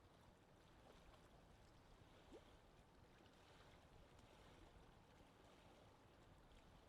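Faint lake ambience of gently moving water, with a brief rising squeak a little over two seconds in.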